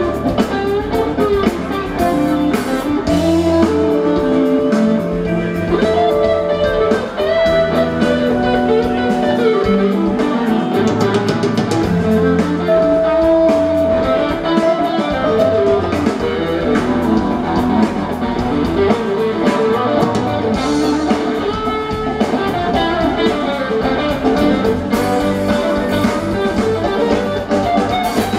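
Live rock band playing: electric guitar melody lines over a drum kit and bass.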